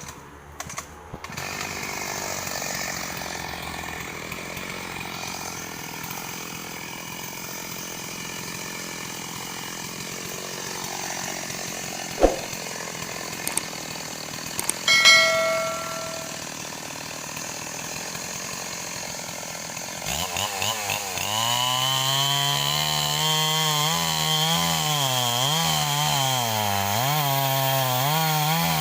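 STIHL 038 two-stroke chainsaw starting about two-thirds of the way in, then running with its revs rising and falling. Before it starts there is a steady background hiss, a sharp knock and a short metallic ring.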